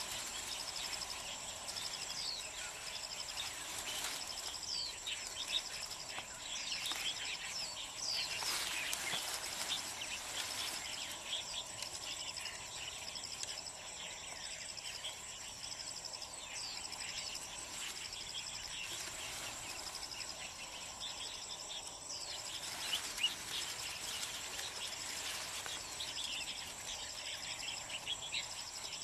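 Hillside ambience: many short bird chirps over a steady, high insect trill, with now and then a brief rustle of leafy branches being handled.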